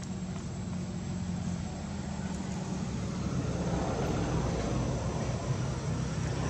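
A steady low engine-like drone, growing a little louder with a rushing noise from about halfway.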